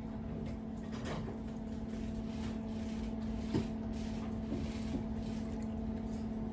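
A steady low hum with a few faint knocks and clicks of handling at a kitchen counter, the clearest about halfway through, as cooked chicken is taken off the bone.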